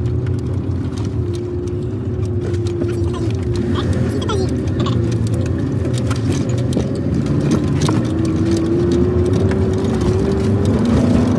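Off-road vehicle driving over a rough dirt track, heard from inside the cab: a steady engine drone with a wavering tone, and light rattles and clicks from the interior throughout.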